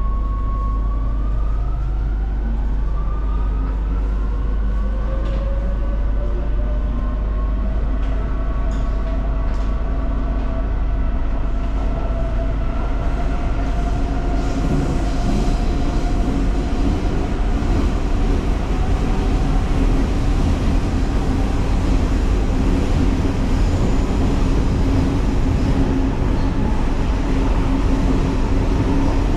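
Metro train heard from inside the car, its electric traction motors whining in several tones that rise in pitch over the first fifteen seconds or so as the train picks up speed, then level off. Under the whine a low running rumble grows louder about halfway through and stays steady.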